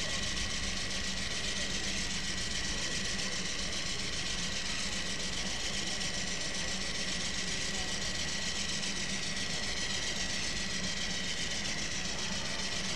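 Steady drone of a diesel locomotive engine running at an even pace, with a thin high whine held over a low hum and no change in speed.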